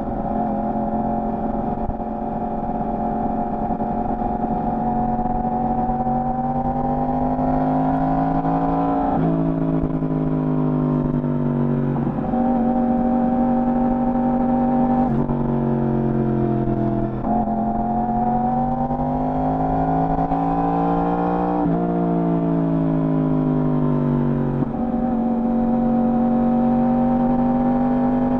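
Yamaha R1's inline-four engine through its stock exhaust under way, the pitch climbing steadily and then falling suddenly several times as the rider shifts gears.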